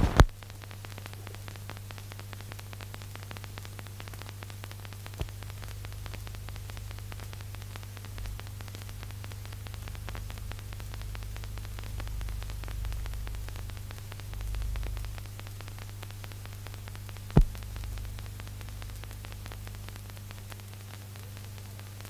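Steady electrical hum and hiss with a couple of sharp clicks and some soft low rumbling: the noise of an old film soundtrack, with no sound from the scene itself.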